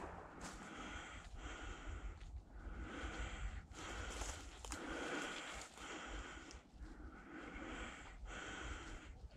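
A person breathing heavily close to the microphone, roughly one breath a second, over a low rumble.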